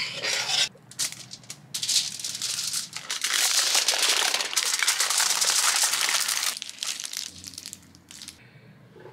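Crinkling and crumpling of wrapping as a log of embutido meat mixture is rolled up in it, with a dense stretch of crinkling for about three seconds in the middle.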